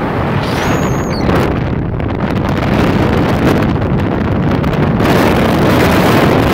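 Dune buggy driving along a sandy track: engine and tyre noise mixed with heavy wind buffeting on the microphone. A short high squeal about a second in.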